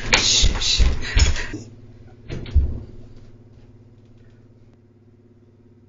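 A woman shushing with a long "shhh" for about a second and a half, over heavy thuds of her footsteps on a wooden floor. A single thump follows about two and a half seconds in, then only a faint steady hum.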